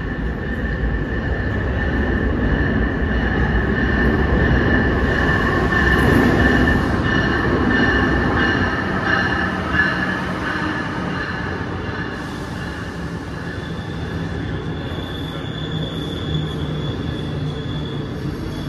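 Amtrak passenger train pulling into the station behind an electric locomotive: a steady rumble of wheels and cars, loudest about five seconds in, with high steady squeals from the wheels and brakes held throughout.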